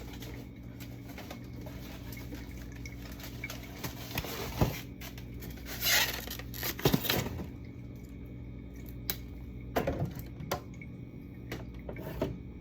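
Bottles, jars and cartons being handled and set down: scattered clinks, knocks and short clatters, the busiest stretch a little past the middle, over a steady low hum.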